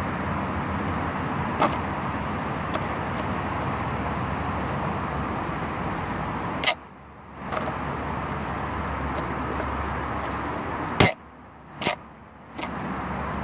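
Steady outdoor background noise with a low hum, broken by a few sharp clicks. Twice, about halfway through and again near the end, the noise briefly drops away.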